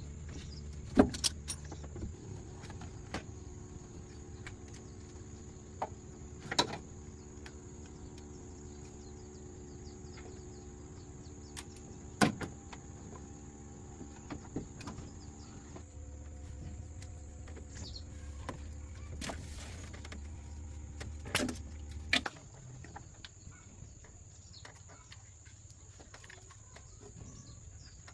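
A machine running with a steady low hum, stopping about 22 seconds in, with scattered sharp knocks and clicks.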